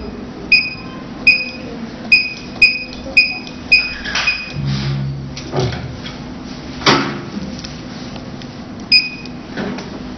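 Touchscreen control panel of a lipo laser cavitation slimming machine beeping as its buttons are tapped: short, high-pitched key beeps, a quick run of about eight in the first four seconds and one more near nine seconds, each confirming a press while the channel frequency is stepped up. A few sharp knocks come between about four and seven seconds, the loudest near seven seconds.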